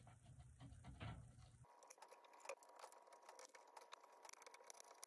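Faint scratching and light tapping of cotton swabs worked against a pinball playfield's plastic inserts. A low hum under it cuts off suddenly a little under two seconds in.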